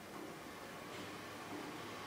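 Quiet room tone: a steady hiss, joined about a second in by a low steady hum, with one faint tick.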